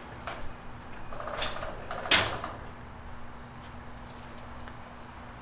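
Touring motorcycle pushed by hand out of a garage with its engine off: clicks and a light rattle, then one sharp knock about two seconds in.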